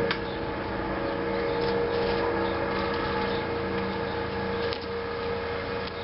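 Steady mechanical hum with a few fixed tones, like a motor or fan unit running, with a light click near the start and another near the end.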